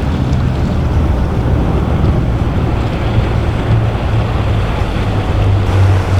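A motor yacht's engines running with a steady low drone, over the wash of waves and wind buffeting the microphone.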